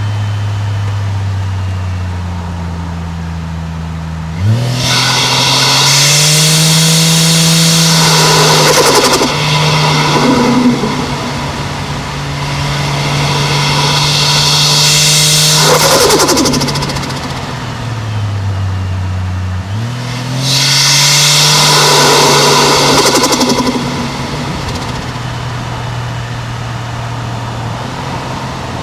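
Turbocharged 1JZ-GTE inline-six engine pulling hard three times, its pitch climbing through the revs, with a rapid chattering turbo flutter each time the throttle closes and the revs drop. Between the pulls it runs steadily at low revs.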